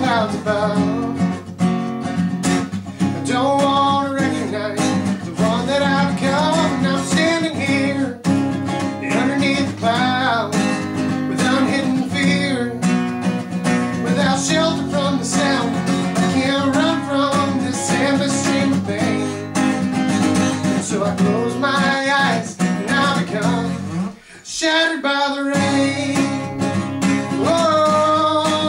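Acoustic guitar strummed and picked, with a man singing over it. The playing drops away for about a second near the end, then resumes.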